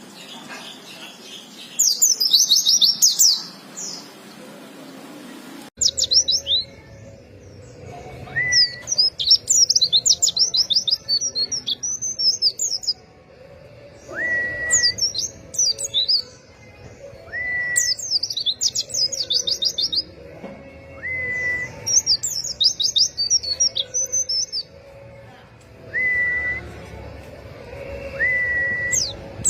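White-eyes (pleci) singing: rapid, high twittering song phrases of a second or two, repeated again and again, with short rising whistled notes between them.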